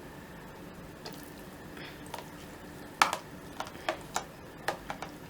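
Light clicks and knocks of kitchen utensils against a container: one sharper knock about three seconds in, then about six lighter taps in quick succession.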